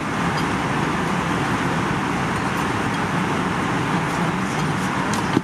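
Steady cabin noise of an Airbus A320 in flight: a constant rush of airflow and engine noise, with a couple of faint clicks near the end.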